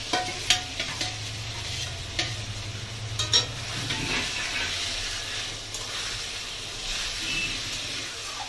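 Fried boga fish pieces sizzling in thick masala in a metal kadai while a steel spatula stirs and turns them, the fish just added to the cooked-down spice paste. Sharp metal clinks against the pan stand out a few times in the first half.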